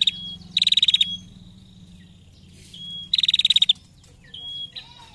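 Female prenjak giving its ngetir call: rapid, buzzy rattling trills, one ending just at the start, another about half a second in and a third about three seconds in, with short thin whistled notes between them. A steady low hum runs underneath.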